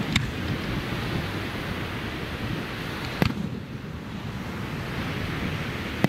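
Aerial firework shells going off with sharp bangs: one just after the start, one about three seconds in, and another at the very end. Under them runs a steady low rush of background noise.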